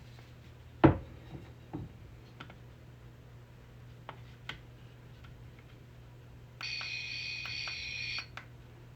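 Plastic clicks and knocks from handling a toy PKE meter's case, the loudest about a second in. About six and a half seconds in, a high electronic buzzing tone with a quick pulse plays for about a second and a half, the newly fitted sound-effect module.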